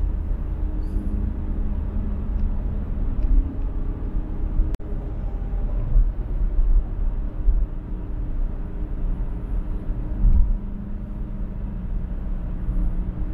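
Car travelling at highway speed: a steady low road-and-tyre rumble with small swells. The sound cuts out for an instant a little under five seconds in.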